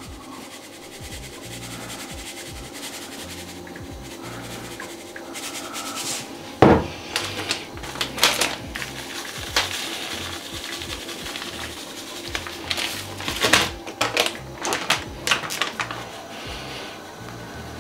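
Plastic spice packets rustling and crinkling in the hands, in a run of short crackles, with a single sharp knock on the counter about seven seconds in. Quiet background music runs underneath.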